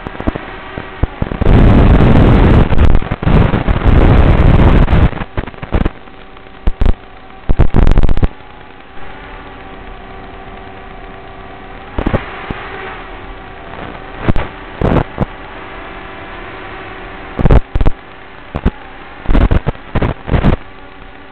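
Steady electrical hum and hiss on the analog FPV video link's audio, broken by loud bursts of crackling static as the radio signal breaks up: one long burst a couple of seconds in, a short one later, and clusters of short crackles near the end.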